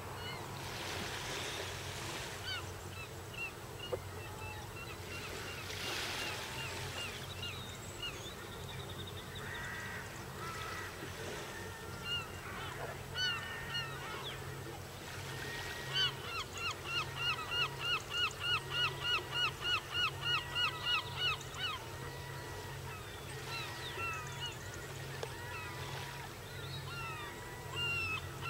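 Wild birds calling across open water: scattered short calls, then a fast run of repeated calls about two thirds of the way in, with slower falling calls every couple of seconds. A steady low hum runs underneath.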